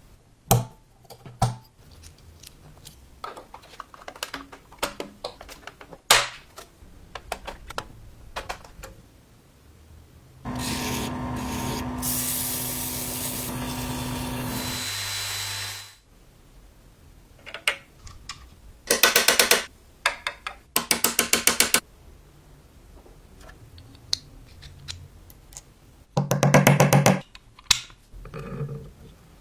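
Hands-on workshop sounds: scattered clicks and knocks of handling, then a tool running with a steady hiss and low hum for about five seconds before cutting off abruptly. Three short bursts of rapid rattling follow.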